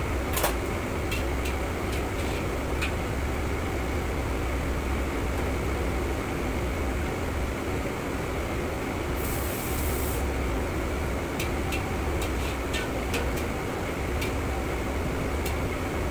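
Steady low roar of a commercial gas wok range and kitchen extraction, with a metal ladle clacking against the wok now and then, in a cluster near the start and again more often toward the end. About a second of hissing near the middle.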